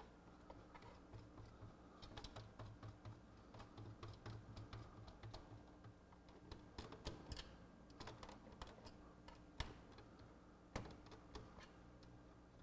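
Faint, irregular clicking and ticking of the small plastic gears in a Pioneer PD-DM802 CD changer's magazine-loading mechanism as they are turned by hand to try to eject a stuck tray, with a few sharper clicks near the end.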